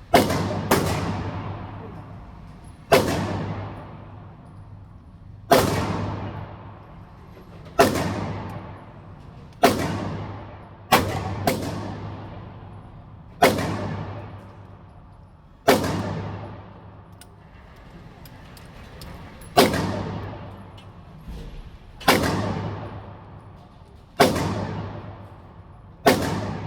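A series of about fourteen sharp, loud bangs at irregular intervals, mostly two seconds or so apart and a couple only about half a second apart. Each bang dies away in a long echoing tail over a steady low hum.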